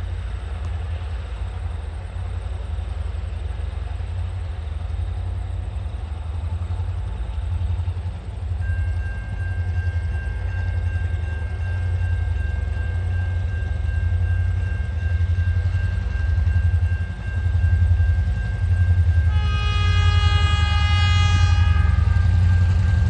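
TasRail 2050-class diesel locomotive 2054 at the head of a coal train, its engine rumbling low and growing steadily louder as it approaches. A steady high tone joins about nine seconds in, and near the end the locomotive sounds one horn blast of two to three seconds, several notes at once.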